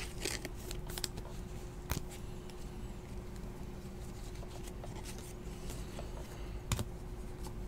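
Panini XR football trading cards being flipped and slid against each other in the hands: soft rustling and light clicks, with two sharper clicks, one about two seconds in and one near the end, over a faint steady hum.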